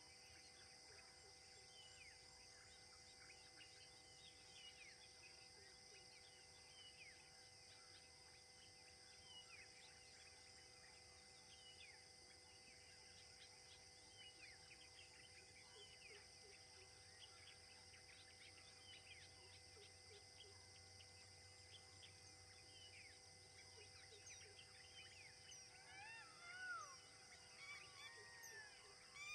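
Faint forest ambience: many short, chirping bird calls over a steady high insect drone, with a few louder, lower bird calls near the end.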